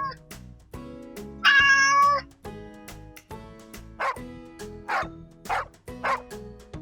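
A cat sound effect meowing once, about a second and a half in, then a dog sound effect barking in a series of short barks from about four seconds, over background music.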